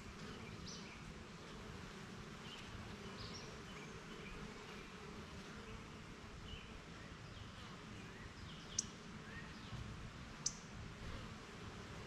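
Honeybees buzzing around a wooden hive entrance, a steady low hum, with short bird chirps scattered through. Two sharp clicks, the loudest sounds, come near the end about a second and a half apart.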